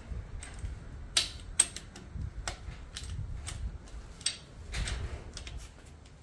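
Long-handled ratchet clicking in short irregular runs as it turns the cylinder head bolts, with a few sharper metallic clicks standing out.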